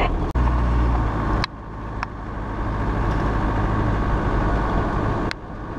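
Land Rover's diesel engine running with road and wind noise while driving, picked up by a camera mounted outside on the front of the vehicle. The level drops suddenly about a second and a half in and again near the end, each time building back up.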